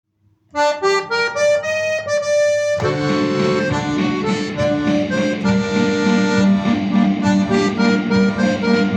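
Instrumental introduction to a song: a single-note melody line opens, then full chords and a bass line come in together a little before three seconds in.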